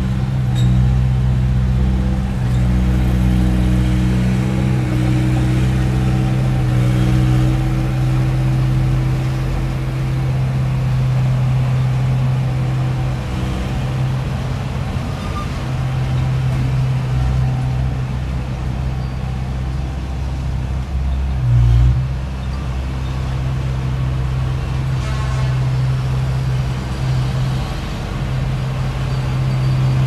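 Diesel engine of a small crawler bulldozer running steadily under load, a low even drone, with a brief louder jolt about two-thirds of the way through.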